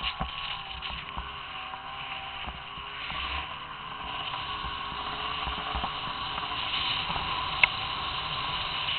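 Snowmobile engine running, faint and steady under a hiss of wind and handling noise on the microphone, its pitch wavering a little in the first few seconds. One sharp click near the end.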